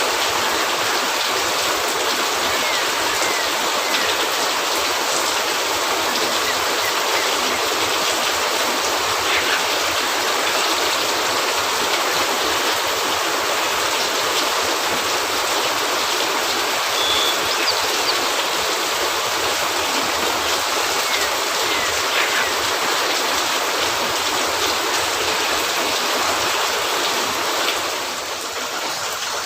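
Steady rain falling: a dense, even hiss that drops slightly in level near the end.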